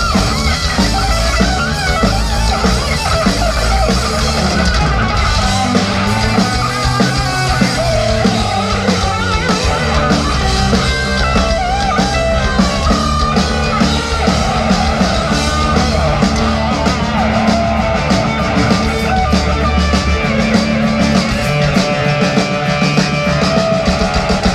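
Live rock band playing at full volume: electric guitar lead lines with bends and vibrato over bass and a drum kit.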